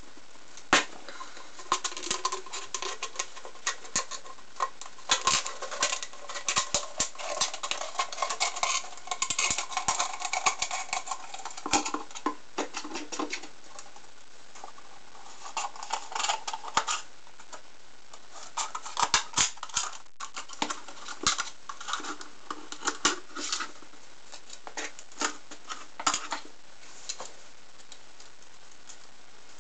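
A thin clear plastic water bottle being cut and handled with scissors: crackling, crinkling plastic and sharp snips. The sound comes in irregular bursts with short pauses and dies away a few seconds before the end.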